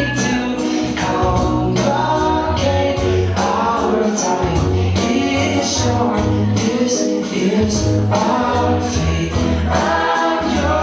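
A song with singing over bass and a steady beat.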